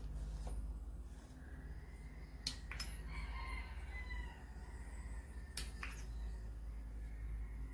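Sharp metal clicks as small valve-train parts are picked out of an aluminium motorcycle cylinder head with a magnetic pickup tool: two pairs of clicks about a third of a second apart, a few seconds between the pairs, over a steady low hum.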